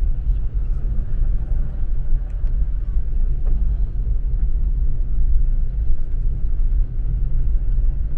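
Car driving on a gravel road, heard from inside the cabin: a steady low rumble of tyres and engine, with a few faint ticks.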